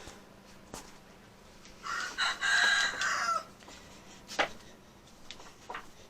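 A rooster crowing once, about two seconds in, for roughly a second and a half, the call dropping at the end. A sharp knock follows a second later.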